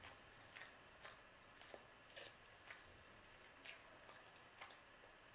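Near silence: room tone with faint small ticks about every half second.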